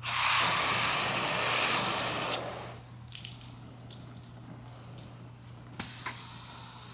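Garden hose spraying water onto a car's freshly waxed body, a hiss that runs for nearly three seconds and then cuts off. Two faint knocks come near the end.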